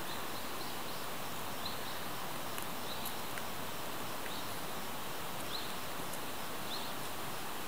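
Steady outdoor background hiss with short, high rising chirps recurring about once a second.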